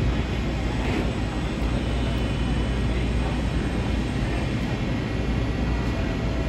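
Schröder SPB EVO up-down CNC folding machine running, a steady mechanical drone with a heavy low end.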